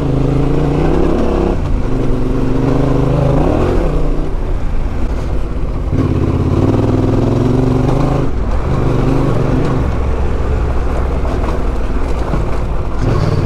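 Yamaha Ténéré 700's parallel-twin engine running steadily as the bike is ridden slowly along a dirt track. The engine note dips briefly and picks up again three times, as the throttle is rolled off and back on.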